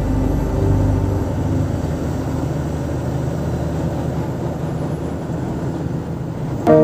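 Steady road noise of a moving vehicle, an even rush without a clear engine tone. Music fades out in the first second, and new music comes in abruptly near the end.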